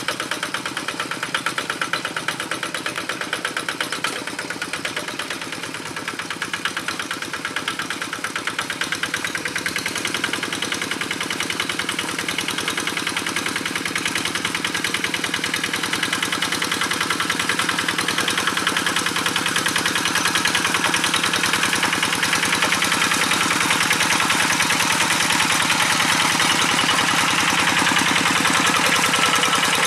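Kubota RD85 single-cylinder diesel engine of a Quick G1000 Boxer hand tractor running steadily under load while harrowing a muddy rice paddy, a rapid, even beat of firing strokes. It grows louder over the second half.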